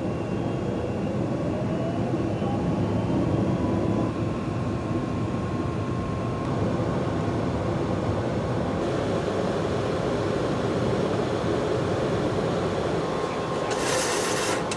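Simulated jet engine and airflow noise inside a full-motion Boeing 737 MAX flight simulator during takeoff: a steady roar with a whine that rises in pitch over the first few seconds as the engines spool up. A brief hiss comes near the end.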